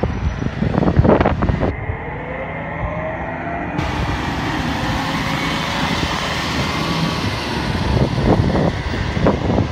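Road traffic going past: a car's engine climbs in pitch as it pulls away, followed by a steady rush of tyres on tarmac. A few loud low thumps come at the start and again near the end.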